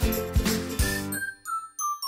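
Background music: an upbeat track with a steady drum beat that stops about a second in. It gives way to a few whistled notes stepping down in pitch, with light high chimes.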